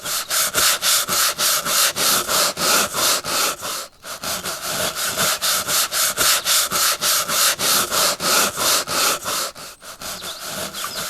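Rapid, even back-and-forth rubbing or scraping strokes, about five a second, with a brief pause about four seconds in.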